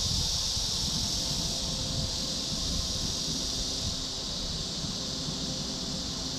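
Outdoor ambience: a steady high-pitched hiss that eases slightly about four seconds in, over low wind rumble on the microphone.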